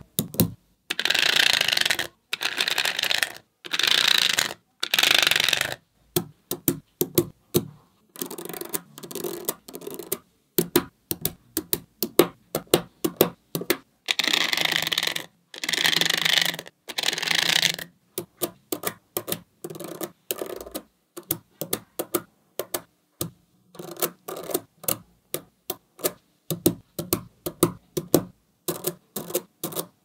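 Small magnetic balls clicking sharply together, many separate clicks as strips of balls are snapped onto a magnet-ball structure. Several stretches of about a second of scraping come in between, twice near the start and twice around the middle, one of them a plastic card rubbed across the rows of balls.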